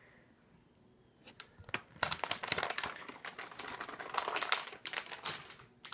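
Plastic packaging of soft-plastic fishing baits crinkling as it is handled, starting about two seconds in and going on until near the end.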